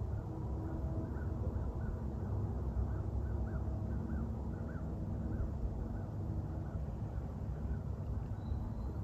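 A bird calling in a quick series of short, repeated notes, about two or three a second, over a steady low outdoor rumble; the calls fade out about six seconds in.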